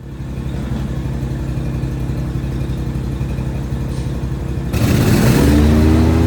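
A Skarper X28i Four Motion wood chipper runs at a steady pulsing note. About three-quarters of the way through, a sudden rushing noise comes in and the engine rises in pitch to a louder, higher, steady run.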